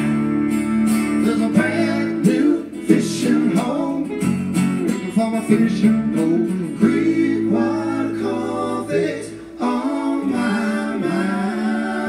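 Live country song played on acoustic guitar, strummed, with no sung words in this stretch.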